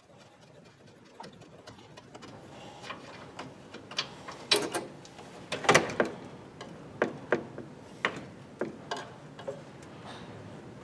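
Hand ratchet clicking in short, irregular strokes as the radiator's top mounting bolts are loosened, with a few sharper metal clanks a little before halfway.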